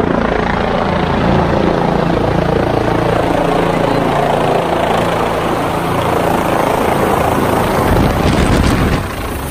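Medical helicopter's rotor and turbine engine running loud and close as it comes in to land, its rotor downwash buffeting the microphone with a rushing wind. Near the end the noise eases off a little.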